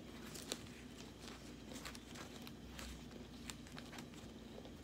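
Faint eating sounds: chewing a mouthful of potato chips, with scattered soft clicks and crackles as a paper sandwich wrapper is handled.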